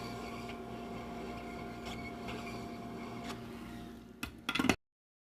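Room tone with a steady electrical hum and a few faint taps, then a short clatter of louder knocks just before the sound cuts off abruptly.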